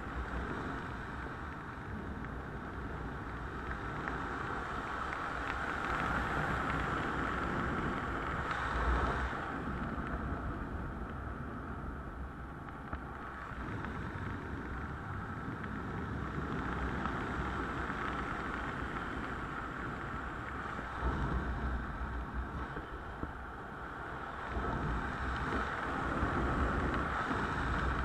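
Steady wind rushing past a helmet-mounted camera during flight under an open parachute canopy, with a few stronger low gusts of buffeting.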